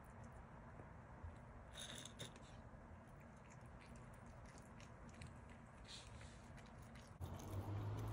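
Faint crisp clicks and crunches of a Virginia opossum chewing pizza. Near the end, louder background music comes in.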